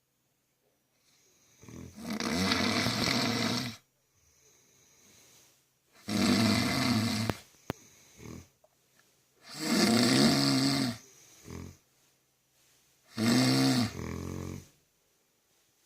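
Bear cub snoring: four loud snores about four seconds apart, each lasting a second and a half to two seconds, with a rumbling pitch that bends up and down, and faint breaths in between.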